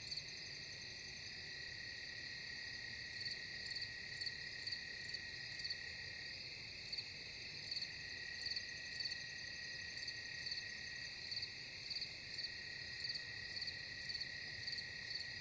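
Night chorus of crickets and other insects: a steady high trill with repeated chirps about twice a second on top.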